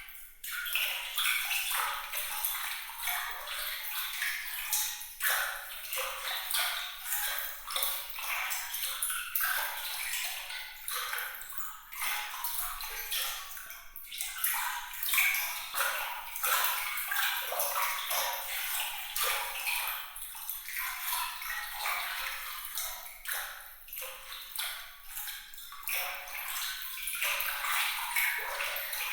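Water trickling and splashing in quick, bright drops and plinks, densely layered, high in pitch with almost nothing low.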